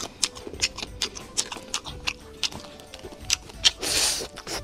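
Close-up eating sounds of a person working through boiled-and-fried crayfish: a quick run of sharp clicks and wet smacks from shells being cracked and the meat being bitten and chewed, with a louder slurp about four seconds in as a crayfish is sucked at the mouth.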